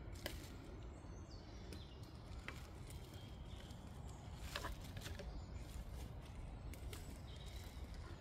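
Quiet woodland ambience: a steady low rumble of wind with scattered clicks and rustles as a plastic bottle and tubing are handled against a birch trunk, and a few short bird notes.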